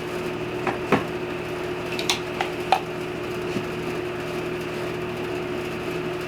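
A few light clicks and knocks of tools and wood being handled, over a steady hum with one clear tone.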